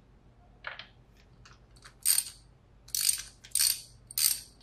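Ratchet wrench clicking in short bursts as it is swung back and forth on an extension and spark plug socket, loosening the spark plugs. A few faint clicks at first, then four louder bursts in the second half.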